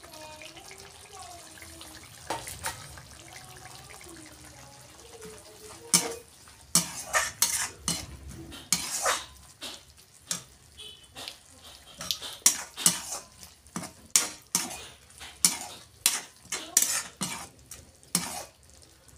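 Metal spatula scraping and clanking against a metal kadhai as a thick dried-prawn curry is stirred. The strokes come quick and irregular from about six seconds in.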